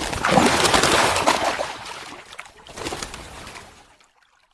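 Crocodiles splashing and sloshing water in a shallow pool. The splashing is loud for about two seconds, then comes in softer bouts that die away.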